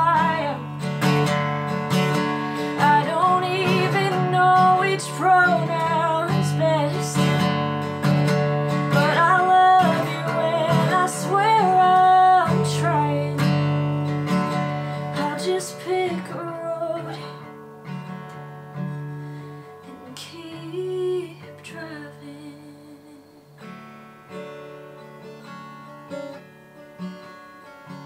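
Acoustic guitar strummed under a singing voice for about the first half; then the voice stops and the guitar plays on alone, more softly.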